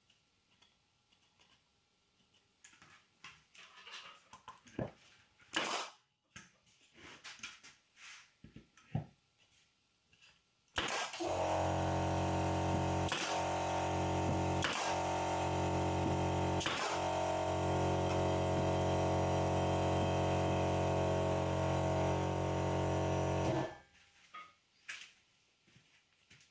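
Scattered light taps and clicks of workshop handling, then a machine motor that starts suddenly about eleven seconds in, runs at a steady unchanging pitch for about twelve seconds with three sharp snaps over it, and cuts off abruptly.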